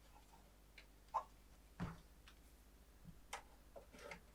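Faint, scattered clicks and light taps, about eight of them at irregular intervals, from parts of a Tektronix TDS 210 oscilloscope being handled and removed during disassembly.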